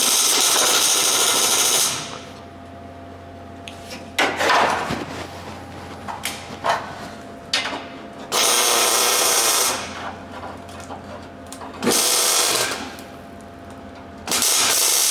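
Arc welding on the bus's sheet metal: four short welding runs of steady crackling that start and stop abruptly, with a few light knocks in between.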